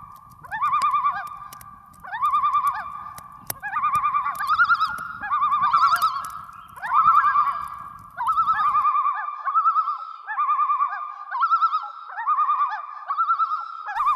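Common loons giving their wavering tremolo calls, about one a second, the calls overlapping in the second half. Sharp crackles come through the first half.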